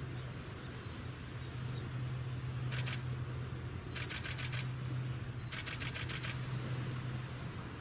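Three short bursts of rapid camera shutter clicks, a still camera firing in continuous-shooting mode, over a steady low hum and hiss.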